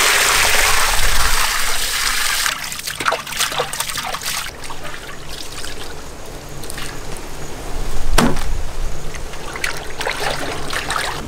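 Water poured from a steel basin over a slab of meat, gushing and splashing for about two and a half seconds, then scattered drips and splashes as the wet meat is handled. A single thump about eight seconds in.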